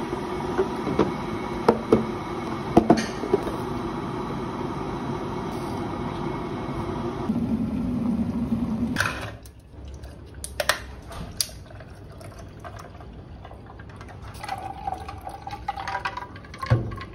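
Hot water poured from an electric kettle into a ceramic mug: a steady pour with a few clinks that stops about nine seconds in. Quieter clinks follow, then a shorter pour of tea from the mug into a glass jar near the end.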